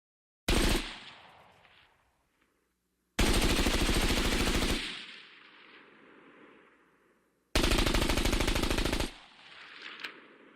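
Machine-gun fire in three bursts: a short one, then two longer bursts of about two seconds and a second and a half, each trailing off in an echoing tail.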